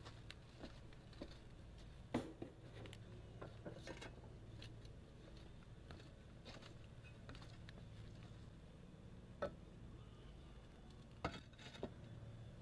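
Scattered light clicks and knocks of shoes stepping across concrete roof tiles and of a loose concrete tile being picked up and set down, over a faint steady low hum.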